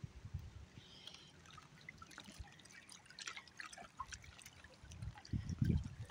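Faint river water lapping and trickling at the edge, with scattered small drips and ticks. A low rumble rises briefly near the end.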